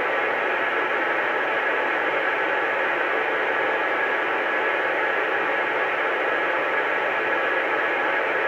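CB radio receiver giving a steady hiss of static between transmissions.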